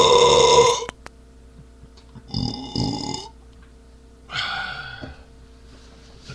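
A man belching loudly from drinking beer: a long burp that ends about a second in, then two shorter burps a second or two apart.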